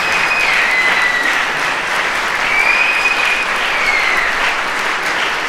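Audience applauding steadily, with a few high drawn-out tones over the clapping: one near the start and one about halfway through.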